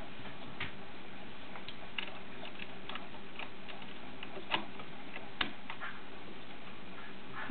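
Irregular small clicks and taps from hands rethreading a sewing machine that is not running, two of them sharper about four and a half and five and a half seconds in, over a faint steady hum.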